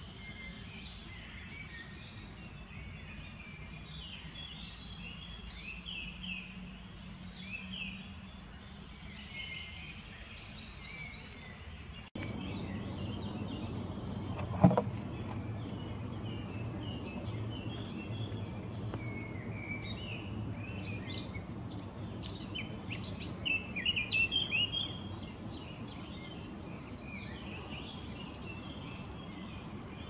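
Common nightingale singing: long runs of varied, rapidly changing phrases, busiest in the second half, over a low steady background rumble. A single sharp knock about halfway through is the loudest sound.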